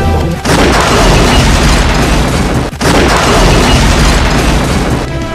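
Explosion: a loud blast of noise starts about half a second in, breaks off for an instant near the middle, then comes again until just before the end.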